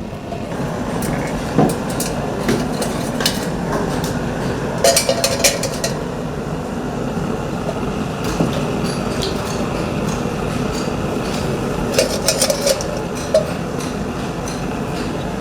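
Copper tinning work: light metallic clinks and hits on copper ware over a steady noisy background. The hits are scattered, with quick rapid runs of strikes about five seconds in and again about twelve seconds in.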